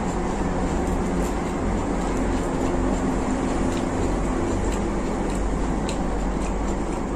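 Steady low rumble of background noise, with faint scattered clicks from someone eating fried fish with their fingers: picking at the fish and chewing.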